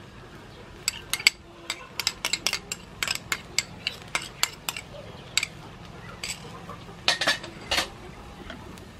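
A spoon clinking and scraping against a small bowl in quick, irregular taps as thick sauce is scraped out of it onto rice in a wok.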